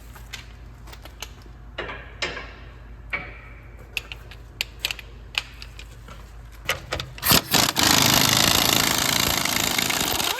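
Scattered clicks and knocks of tools being handled. Then, about eight seconds in, an impact gun starts hammering loudly and steadily as it spins a rust-seized strut-to-knuckle bolt back and forth to work the rust out of the knuckle.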